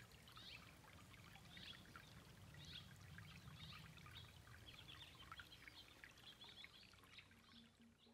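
Faint shallow creek trickling over stones, with a bird chirping about once a second.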